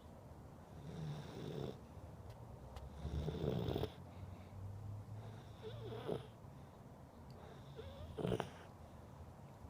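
A sleeping pet snoring: about four slow snores, each roughly two seconds apart, the loudest about three and a half seconds in and another near the end.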